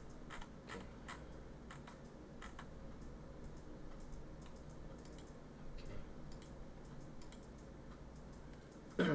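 Irregular light clicks from someone working a computer's mouse and keys, roughly one a second, over a faint steady low hum.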